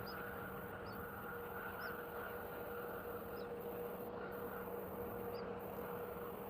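Steady background hum and hiss with faint, short high-pitched chirps every second or so.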